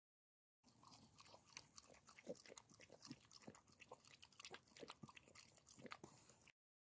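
Norfolk Terrier lapping water from a puddle: a faint, quick, irregular run of small wet laps and slurps that starts shortly in and stops abruptly near the end.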